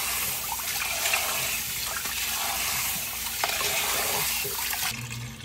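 Tap water running into a stainless steel bowl of basmati rice while hands swish and rub the grains to wash them. The steady splashing cuts off near the end.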